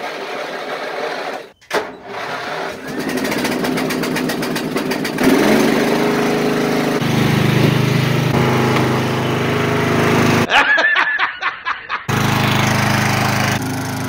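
Craftsman riding lawn mower engine starting up and running, its pitch rising about five seconds in and then holding steady. The engine sound breaks off briefly near the ten-second mark and resumes.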